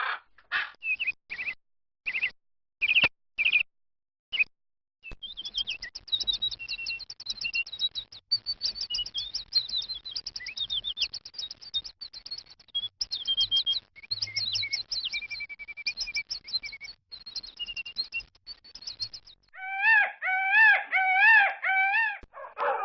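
Wild birds calling and singing: a run of short separate calls at first, then from about five seconds in a dense chorus of high, fast twittering songs, and near the end a louder, repeated wavering call.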